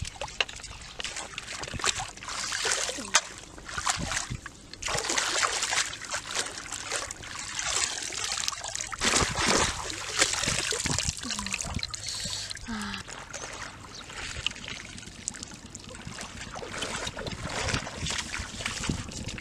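Shallow muddy water splashing and sloshing in uneven bursts as fish are put into a woven basket held down in the water, with wading through the shallows.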